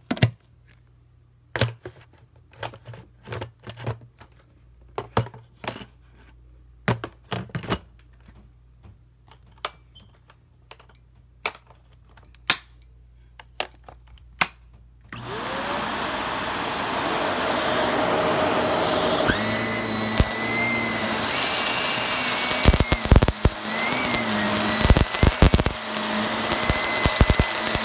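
Scattered clicks and knocks, then a little after halfway an upright vacuum cleaner switches on and its motor spins up to a steady whine. In the last third the brushroll picks up carpet debris with rapid sharp crackles and rattles.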